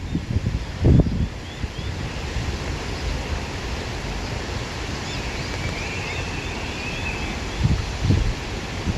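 Wind blowing through grass, with gusts buffeting the microphone in low rumbles about a second in and again near the end. A few faint high chirps come shortly after the first gust, and a faint wavering high tone runs through the middle.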